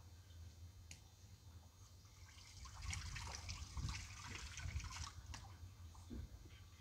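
Small dogs eating wet pâté from a stainless steel bowl: wet licking and chewing, busiest from about two and a half to five seconds in.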